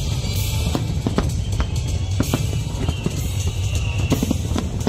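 Music with a fast drum beat over the continuous low rumble and sharp bangs of a large fireworks display.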